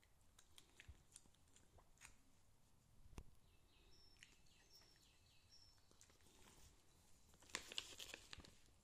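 Faint crunching clicks of small dogs chewing treats, then near the end a louder crinkling of a plastic treat pouch being handled.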